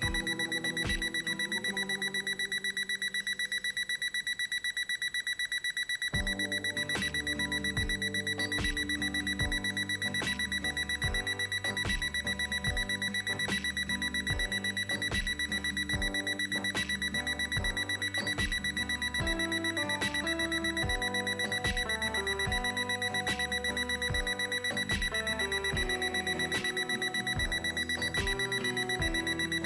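IKEA KUPONG digital alarm clock's electronic alarm sounding: one high beep tone pulsed rapidly and without a break. Background music with a steady beat plays under it and grows fuller about six seconds in.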